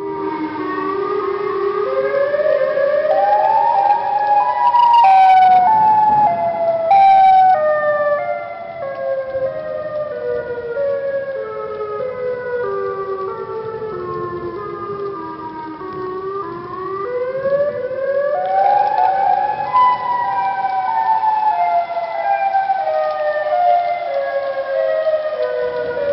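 Malfunctioning outdoor tornado warning siren sounding a repetitive descending tone. Its pitch climbs and falls in separate steps rather than a smooth wail: up for the first few seconds, stepping down for about ten, then up again and stepping back down. The breakdown gives it an eerie sound.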